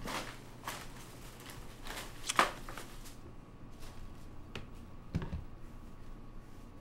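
Light rustling and handling clicks, with a sharper click about two and a half seconds in and a soft low thump a little past five seconds.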